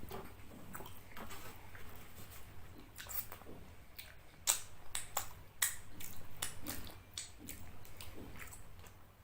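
Close-up chewing of fish curry and rice: irregular short mouth clicks and smacks, with several sharper ones about halfway through.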